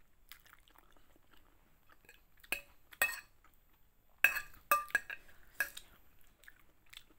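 Metal fork clinking and scraping against a plate of noodles. There are sharp clinks twice between two and a half and three seconds in, then a quicker run of them from about four to six seconds, the loudest just after four seconds.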